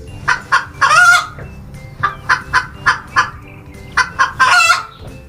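Domestic hen clucking: quick runs of short clucks, twice broken by a longer, drawn-out squawk, about a second in and again near the end.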